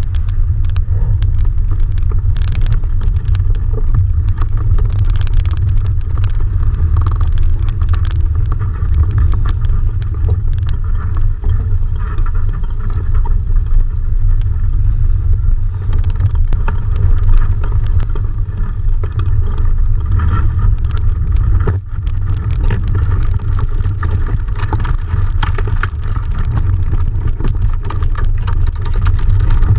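Steady wind rumble on the microphone of a camera mounted at the top of a sailing dinghy's mast, with scattered light clicks and knocks.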